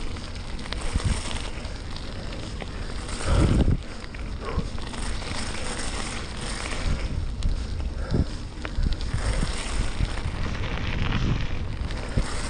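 Wind buffeting a handlebar-mounted action camera's microphone while a bike's tyres crunch and rattle over a wet gravel path, with scattered small clicks. A louder low rumble lasts about half a second, a bit over three seconds in.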